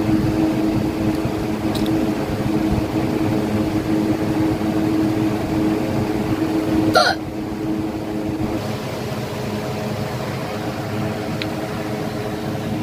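A woman's single sharp hiccup about seven seconds in, one of a run of hiccups that she puts down to very spicy red chilli in her food. Under it runs a steady background hum, whose strongest tone cuts out about a second and a half after the hiccup.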